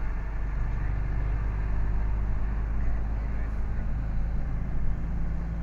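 Lorry engine running steadily under way, with road noise, heard from inside the cab.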